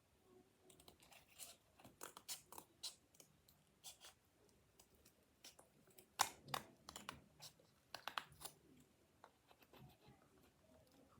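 Faint handling of paper and cardboard: irregular crinkles and small clicks, a little louder about six and eight seconds in.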